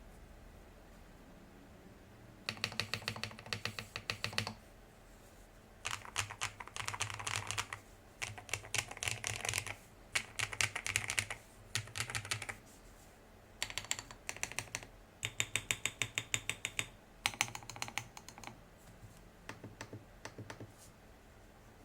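Typing on an FL-ESPORTS CMK75 wireless mechanical keyboard: rapid runs of key clicks in bursts of one to two seconds with short pauses between them, starting a little over two seconds in.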